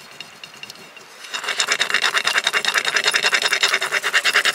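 Small wooden scraper stick rubbed rapidly back and forth over the backing sheet of a rub-on decor transfer on a painted terracotta pot, burnishing the design onto the pot. The fast scraping strokes, several a second, start about a second and a half in.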